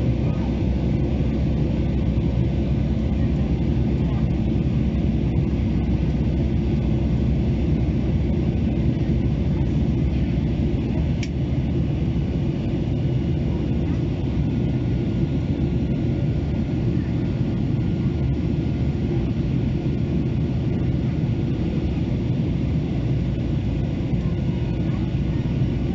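Cabin noise inside a Boeing 737-800 in flight: a steady low rumble from its CFM56-7B turbofan engines and the airflow. There is a faint click about eleven seconds in.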